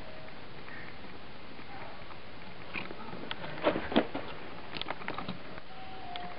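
Camera handling noise: a few sharp clicks and knocks, the loudest two close together a little over halfway through, then several lighter ticks, over a steady hiss.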